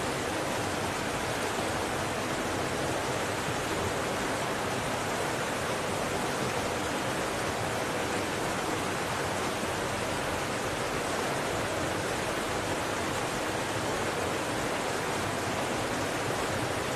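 Steady, unchanging rush of water from a waterfall and the rapids below it.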